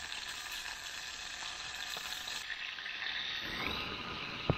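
Hot cooking oil sizzling in a pan over a campfire, a steady hiss, with a single sharp knock near the end.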